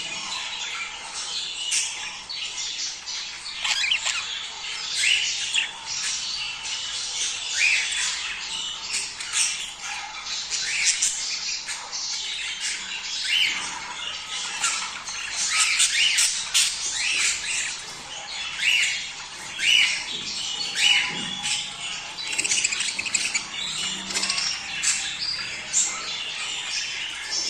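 A flock of budgerigars chattering without pause: a dense stream of short chirps, warbles and harsh squawks, with louder single calls cutting in every second or so. This is the chatter of budgies in breeding mood, offered as a mating call.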